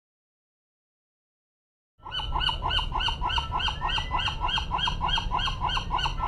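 Silence, then about two seconds in an animal starts calling rapidly and repeatedly, about four even calls a second, until the end.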